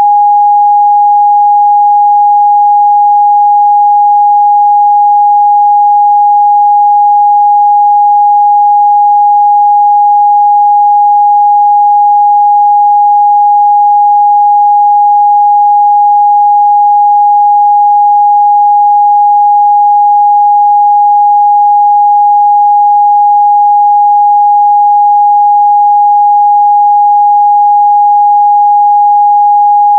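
Loud, steady 824 Hz sine-wave test tone, a single pure pitch held without change.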